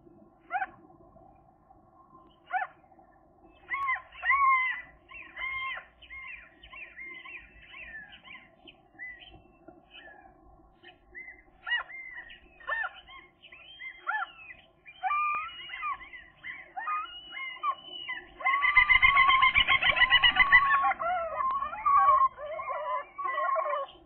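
Gulls calling at the nest: short, repeated up-and-down calls. They build to a loud, dense burst of calling about nineteen seconds in, as a second gull joins the first.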